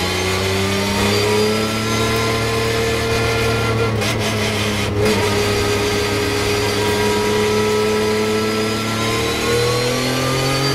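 Porsche 911 GT3 Cup race car's flat-six engine heard from inside the cockpit, pulling in second gear at around 4,000 rpm, its pitch climbing slowly and rising again near the end.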